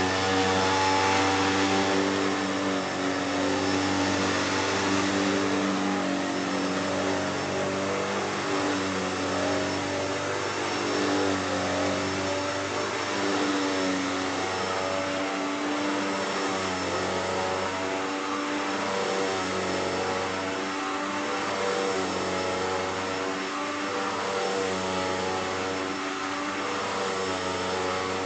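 Hoover Deluxe Elite Rewind upright vacuum cleaner running steadily: a motor hum with airflow rush, its pitch wavering a little.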